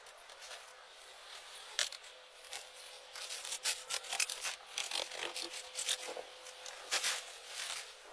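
Irregular rubbing, scraping and crackling of materials being handled, sparse at first and then dense from about three seconds in, over a faint steady hum.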